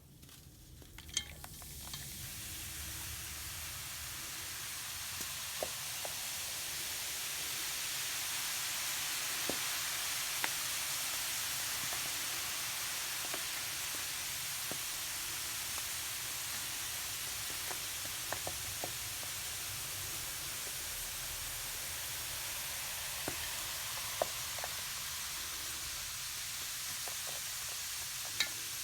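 Baking soda chunks fizzing in vinegar: a steady high hiss of bubbling that builds up over the first few seconds after a sharp tick about a second in, with scattered tiny pops and clicks throughout.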